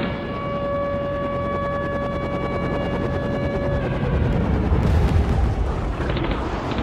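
Music soundtrack: a single held note rings for about four seconds, then a deep low rumble builds in the bass, leading into a heavy rock track.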